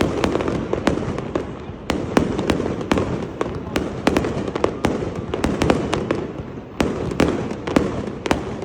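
Fireworks going off in a rapid, irregular barrage: many sharp cracks several times a second over a continuous rumble of bursts.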